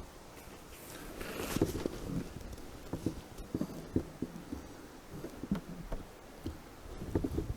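Faint handling noise: scattered soft knocks and rustling, with no shot fired.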